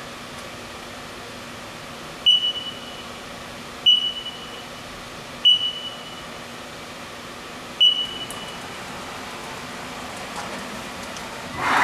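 Four short high beeps with clicks, spaced about one and a half to two seconds apart, over the steady hum of a Haas TM-1 CNC mill, typical of the control keypad being pressed. Near the end a much louder machining noise starts up.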